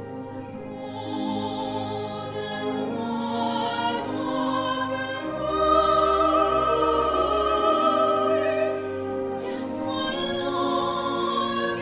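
Operatic soprano singing an aria with wide vibrato over a full orchestra with brass. The voice enters about a second in and swells to its loudest on a long held high note in the middle, with a low bass swell beneath.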